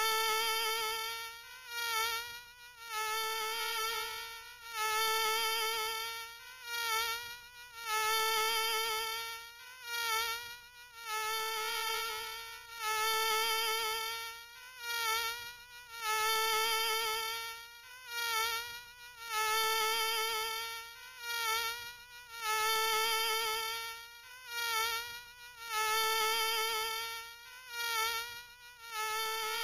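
Mosquito whine: a thin, high buzzing tone with many overtones, swelling and fading again and again about every one to two seconds.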